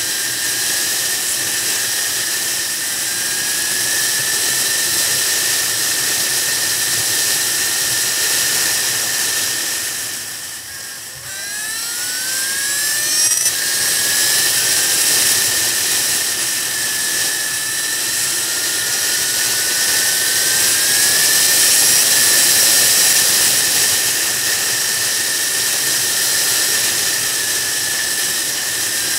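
Sport motorcycle on the move, heard from a camera on the bike: steady wind rush mixed with engine whine. About ten seconds in it goes quieter as the bike eases off, then the engine pitch climbs as it accelerates through the gears, with another rising whine later on.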